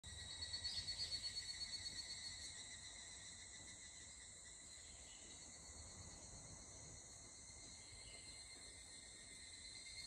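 Faint, steady high trilling of insects. A louder pulsing stretch of about five pulses a second comes in the first two seconds.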